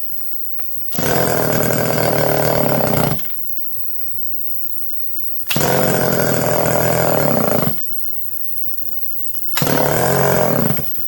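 Homelite EZ chainsaw's two-stroke engine firing and running in three short bursts of about two seconds each, cutting off after each one. It keeps catching without staying running, which the owner takes as a sign that the carburetor needs attention.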